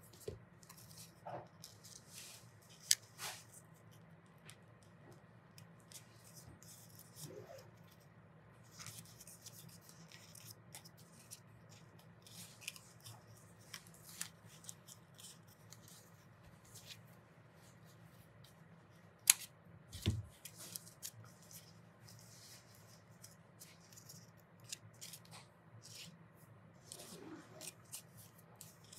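Stiff cut paper being handled and pressed together: scattered soft rustles and small clicks, a few sharper ones among them, over a faint steady low hum.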